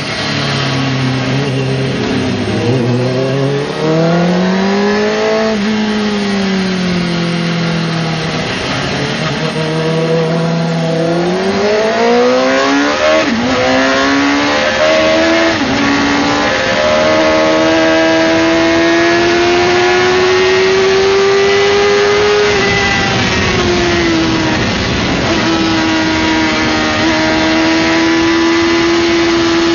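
Suzuki GSX-R600 inline-four engine heard from onboard while lapping a circuit. In the first half its revs climb and drop several times with gear changes; in the second half they hold high and nearly steady. Wind rush runs under it throughout.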